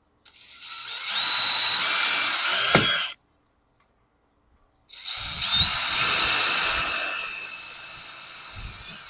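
Electric drill with a 7/64 bit drilling two holes through a pontoon boat's top rail, in two runs with a pause of about two seconds between them. The first run spins up and stops sharply; the second eases off toward the end.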